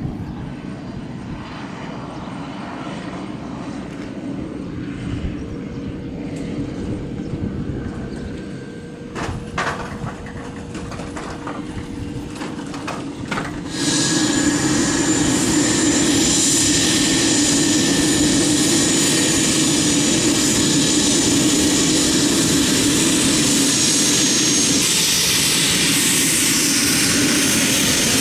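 Pilatus PC-12's single PT6A turboprop engine and propeller running, first more distantly as the aircraft rolls out along the runway. About halfway in it becomes suddenly louder and closer as it taxis, with a steady high-pitched turbine whine over the propeller's drone.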